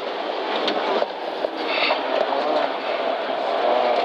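Engine of a rally-prepared Toyota Corolla running at speed, heard from inside the stripped cabin, with road noise. The engine note holds steady and gets slightly louder toward the end.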